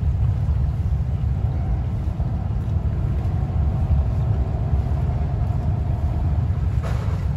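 A bumboat's diesel engine rumbling low and steady as the boat comes in slowly, with a faint steady whine above it. A brief higher sound cuts in near the end.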